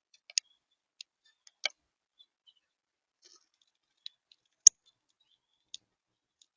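Irregular sharp clicks and taps of birds pecking and cracking seed at a bird feeder, about half a dozen clear ones spaced unevenly, the loudest about two-thirds of the way in.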